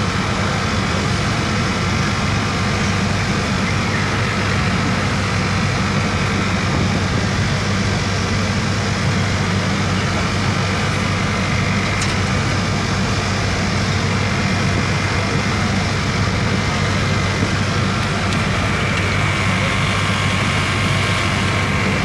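A boat's engine running with a steady low drone, unchanging throughout.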